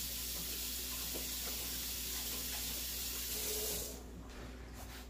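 Kitchen faucet running as hands are rinsed under it, a steady rush of water that is shut off about four seconds in.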